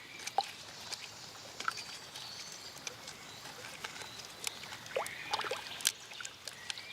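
Faint water sounds: light sloshing and small splashes, with scattered clicks and a few faint high chirps.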